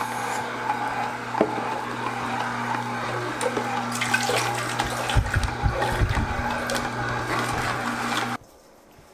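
Kitchen appliance motor running with a steady low hum while green juice is made, with liquid swishing and a few dull knocks. It cuts off suddenly about eight seconds in.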